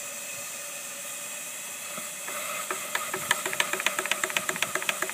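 Steam hissing steadily from a 2-inch-scale Minnie live-steam traction engine, then, after about two seconds, the engine getting under way with sharp exhaust chuffs and mechanical clicks that quicken to about four or five beats a second.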